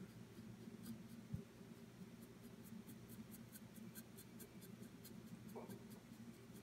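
Near silence: faint strokes of a paintbrush working a sepia wash along a miniature's book pages, over a steady low hum. There is a small knock about a second and a half in, and a run of faint high ticks in the middle.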